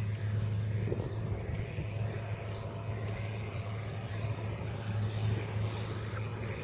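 New Holland T8020 tractor's six-cylinder diesel running steadily under load, a constant low drone, as it pulls a forage wagon picking up the grass swath.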